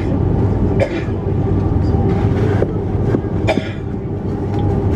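Airbus A330-300 cabin noise: a steady low rumble and hum, with a few short knocks and clicks, one about a second in and one about three and a half seconds in.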